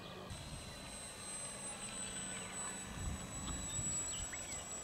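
Electric RC model airplane flying, its motor and propeller giving a steady high whine over a low rumble that swells about three seconds in.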